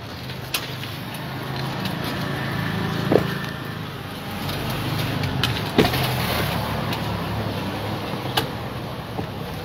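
A motor vehicle engine idling steadily, with four sharp clicks or knocks about two and a half seconds apart.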